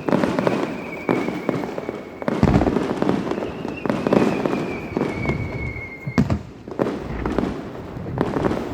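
Aerial fireworks bursting in quick succession, a deep boom about every second with crackle between. A thin whistle slides slowly down in pitch, twice.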